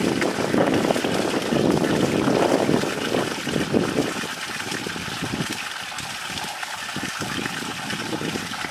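Water pouring from bamboo pipes into a shallow fish pond, a steady splashing and trickling that turns softer about four seconds in.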